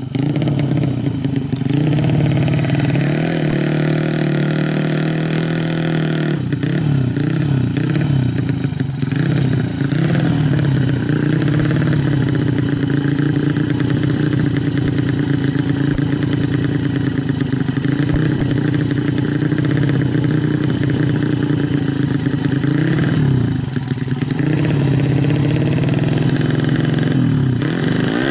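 Honda Supra X drag bike's single-cylinder four-stroke engine, bored up from 100cc to 130cc, running loudly as the rider holds and works the throttle. The revs rise and sway now and then, with a brief dip near the end.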